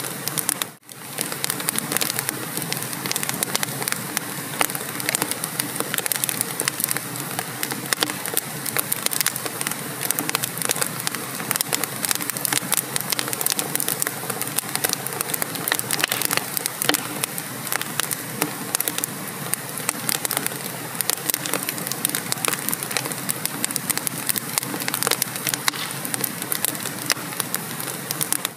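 Wood fire in a fireplace burning steadily with dense crackling and popping over a soft hiss. The sound briefly drops out just under a second in.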